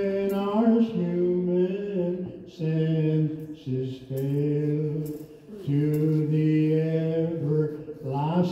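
Liturgical singing during Mass: a slow, chant-like melody of long held notes stepping up and down in pitch, phrase after phrase with short breaths between.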